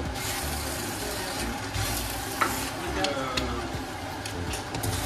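Mee goreng (fried noodles) sizzling in a hot frying pan as it is stirred and tossed with a spatula, with the spatula clicking against the pan several times.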